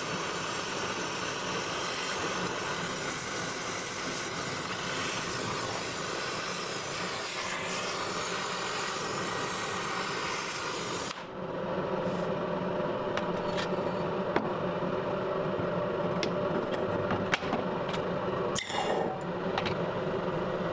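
Oxy-acetylene torch flame hissing steadily while melting and pouring a gold alloy from a crucible. The hiss stops abruptly about eleven seconds in, leaving a lower steady hum with scattered sharp clicks and knocks.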